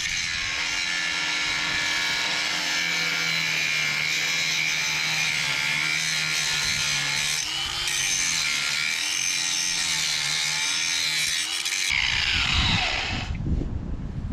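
Angle grinder running under load on metal for about twelve seconds with a steady high whine, then released and spinning down in a falling whine near the end, followed by wind buffeting the microphone.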